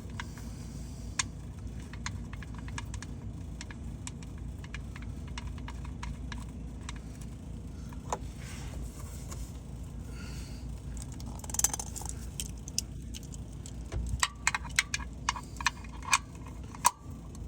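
Scattered metallic clicks and clinks of a wrench and the oil drain plug as the plug is threaded back into the oil pan and snugged up. The clicks grow busier near the end, over a low steady rumble.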